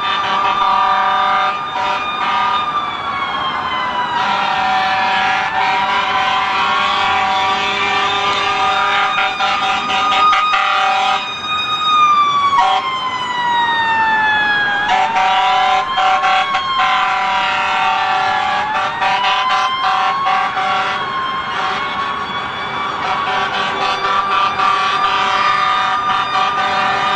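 Several emergency-vehicle sirens wailing at once, their pitches slowly falling and rising and overlapping one another over a bed of steady tones.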